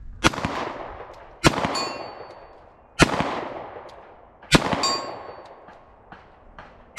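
Four 9mm shots from a CZ 75 D PCR pistol, about a second and a half apart, each trailing off in a long echo, with a fifth shot right at the end. Shortly after the second and fourth shots a distant steel plate target rings with a thin metallic tone, marking hits; the first and third shots bring no ring.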